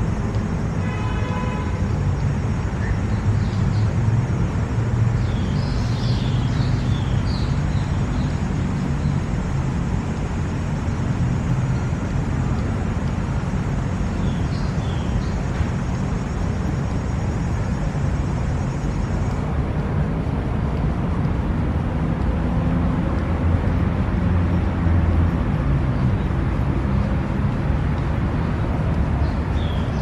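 Steady low rumble of city traffic, with a few short high chirps about 6 seconds in, again about 15 seconds in, and near the end.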